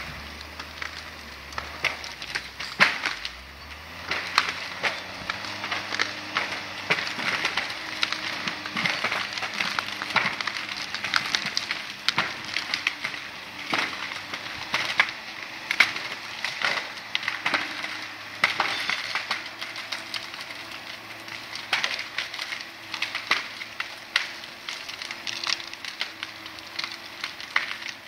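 Timberjack 450 cable skidder's diesel engine working under load, picking up revs a few seconds in and then holding steady, while a large log dragged behind it sets off constant crackling and snapping of branches and brush.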